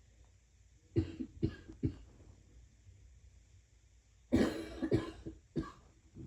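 A person coughing, a persistent cough that keeps them from sleeping: three quick short coughs about a second in, then a longer fit of several coughs about four seconds in, and one more cough near the end.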